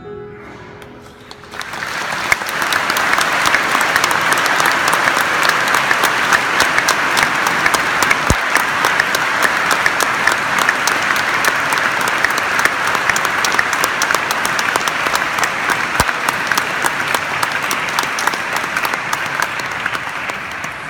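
Congregation applauding: a dense, sustained round of clapping that swells in about a second and a half in and eases off slightly near the end. The last guitar chord fades out just before the clapping starts.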